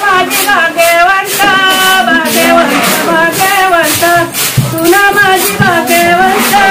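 Singing of a traditional wedding song, with melodic held and gliding notes over a steady beat about twice a second.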